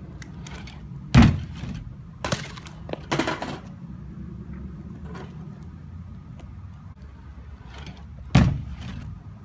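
BMX bike impacts: a loud thud about a second in, followed by smaller knocks and rattles, then another loud thud near the end.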